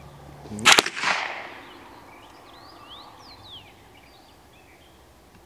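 A single .22 LR rifle shot about a second in: a sharp crack with an echo that trails off over about a second. Faint bird chirps follow.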